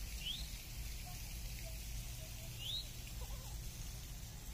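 Outdoor ambience with a faint low rumble, and twice a short, high chirp that rises in pitch, about two and a half seconds apart, from an unseen small animal.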